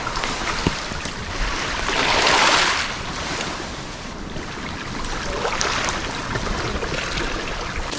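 Ocean surf washing onto the shore, with wind on the microphone. The biggest surge comes about two seconds in and a smaller one near six seconds.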